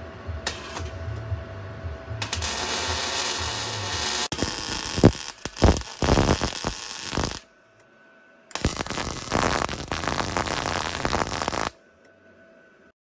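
Welding arc from a Unimig Viper 185 welder crackling and sizzling in two runs, one about five seconds long and a shorter one of about three seconds, each cut off abruptly.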